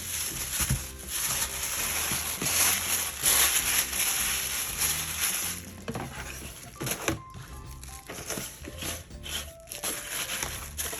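Background music with a steady bass line, with a loud crinkling, rustling noise over about the first half that fades out about six seconds in, followed by a few scattered clicks.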